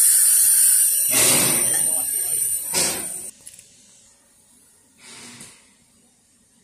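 Narrow-gauge steam locomotives standing at the platform, with a steady high hiss of escaping steam and two louder gushes about one and three seconds in. The sound cuts off abruptly just after three seconds, leaving a quiet background with one brief faint noise around five seconds.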